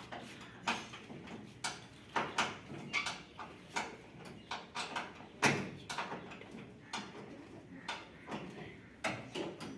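Irregular knocks and clatter, roughly two a second and varying in strength, the loudest about five and a half seconds in.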